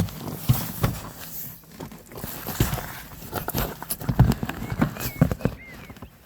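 Irregular plastic knocks and clicks, with rustling and a few brief squeaks, from a car's inner door trim panel being handled while its cables and connectors are unclipped.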